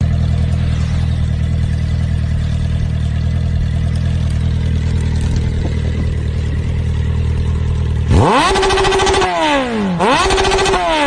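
Motorcycle engine idling steadily, then revved up and let fall back twice near the end.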